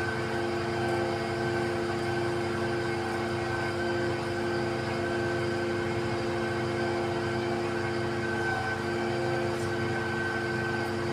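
XCMG truck-mounted concrete pump running: a steady mechanical drone with several held, unchanging tones over a low rumble.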